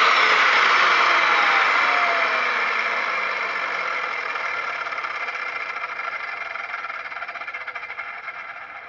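Skil 3160 miter saw's motor with a 7-inch diamond blade running at full speed, then, about a second and a half in, released and spinning down, its whine falling in pitch and fading slowly.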